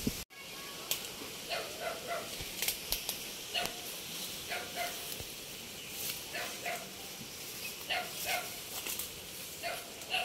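A dog barking repeatedly, short barks coming every second or so.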